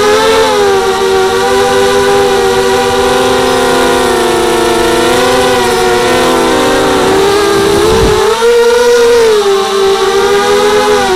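Brushless motors and propellers of a 230mm FPV racing mini quadcopter, heard from its onboard camera. They give a steady whine whose pitch rises and falls with the throttle. About eight seconds in the pitch dips briefly, then climbs back.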